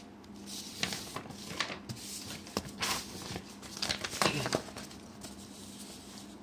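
Sheets of paper rustling and crinkling as they are handled and swapped, in a string of irregular bursts for about four seconds, loudest near the end, over a faint steady hum.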